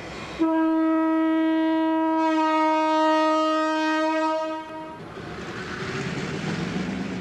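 Diesel locomotive horn sounding one long steady note for about four seconds, then the rushing rumble of the train going by.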